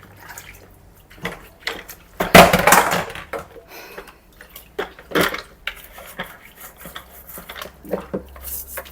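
Hard plastic vacuum cleaner parts being handled and cleaned at a sink: scattered clicks, knocks and clattering, with a louder rough, noisy burst lasting under a second about two and a half seconds in.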